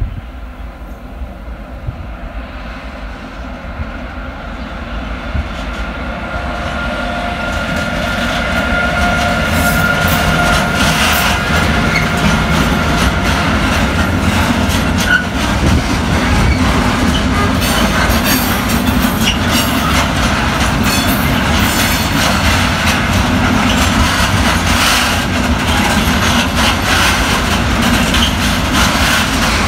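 Freight train of hopper wagons behind an electric locomotive approaching and passing close by, growing louder over the first several seconds. It settles into the steady rumble and clatter of wagon wheels over the rail joints. A steady high tone sounds during the first half as the train draws level.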